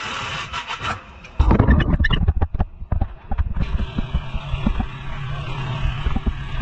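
Irregular knocks and clatter of hand work on a car's front suspension, loudest for about two seconds after the first second. A steady workshop hum with scattered clicks runs underneath.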